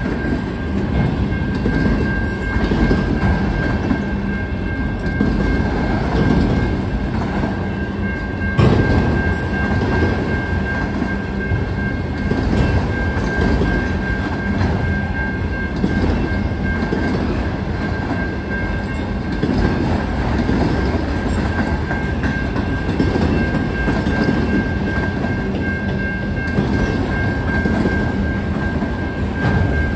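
Freight train of autorack cars rolling steadily through a road crossing: continuous rumble and clatter of wheels over the rails, with one sharp bang about eight and a half seconds in. A steady high tone from the crossing's warning bell sounds over the train noise.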